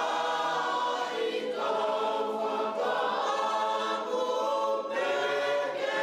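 A choir singing in harmony, holding long chords that shift every second or so.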